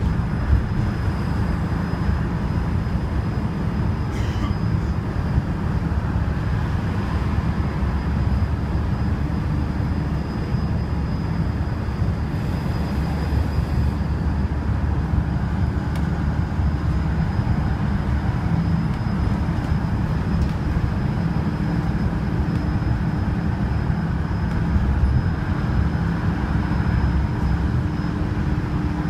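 Cabin noise on the upper deck of a Wright StreetDeck double-decker bus cruising at motorway speed: a steady low drone of engine, drivetrain and tyre noise, with a faint high whine.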